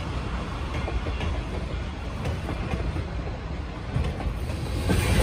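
A short train passing and rolling away, its caboose's wheels clicking over the rail joints with a steady rumble. Near the end the sound jumps to a louder, heavier rumble.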